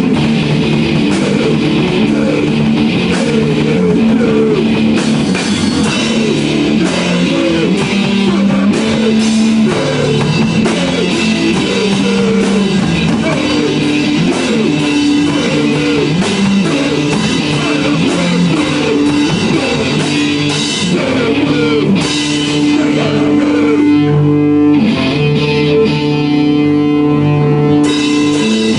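Live rock jam on electric guitar and drum kit, played loud, with a moving riff that settles into long held notes near the end.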